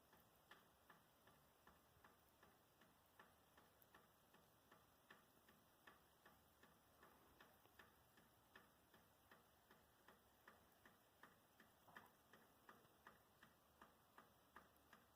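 Faint, evenly spaced ticking, a little under three ticks a second, with a few louder ticks along the way.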